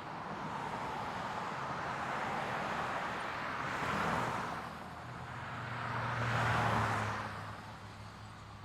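Road traffic: two vehicles passing, one about four seconds in and a louder one around six and a half seconds, each swelling and fading, with a low engine hum under the second.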